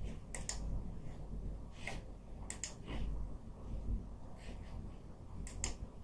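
A handful of sharp computer mouse clicks, several in quick pairs, over a low steady room hum.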